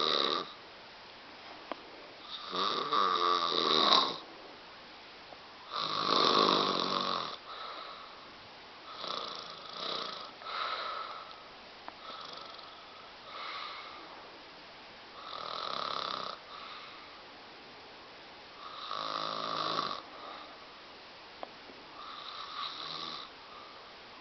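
A woman snoring really loud in her sleep: long rasping, buzzing snores every three to four seconds, the strongest in the first seven seconds, with some shorter, weaker snores in between.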